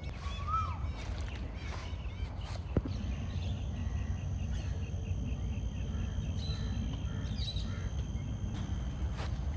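Birds calling over a steady low outdoor rumble. There is one short call that rises and falls near the start, then a quick run of high, evenly spaced chirps a few seconds in, with a single sharp click before it.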